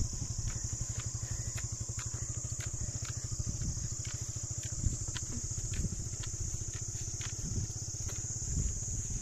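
Motorcycle engine running at low revs as the bike climbs slowly up a grassy trail, with a steady high buzz of crickets over it.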